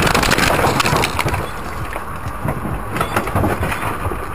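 Vehicle crash: a loud crunching, breaking noise dies down about a second in, followed by a few sharp cracks of debris around the middle.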